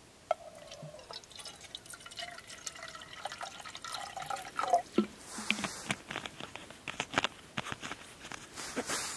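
Water dripping and trickling, with many small drops and clicks.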